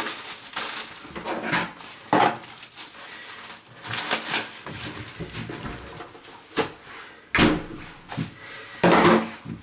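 Food packages and containers being handled and set down: irregular knocks and clacks with short rustles between them, the sharpest about 2, 6.5, 7.5 and 9 seconds in.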